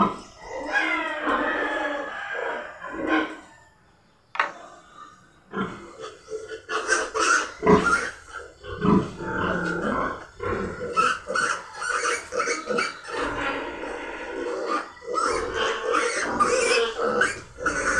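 Fifteen-day-old piglets squealing and grunting, with a brief pause about four seconds in. From about five seconds in, a piglet held up by its hind legs for an iron injection squeals over and over in distress at being handled.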